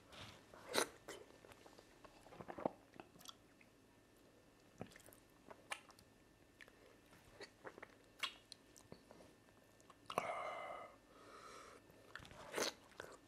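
Close-miked eating of cocoyam fufu and soup by hand: soft, wet chewing and lip smacks with scattered sharp mouth clicks, the loudest about a second in. About ten seconds in there is a brief hummed vocal sound.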